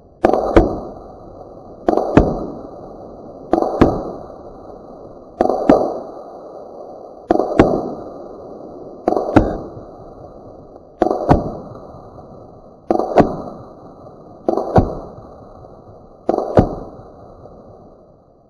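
FX Revolution semi-automatic PCP air rifle firing ten evenly paced shots, about one every two seconds. Each shot is a sharp crack followed about a third of a second later by a second sharp crack, the pellet striking the plastic water bottle target.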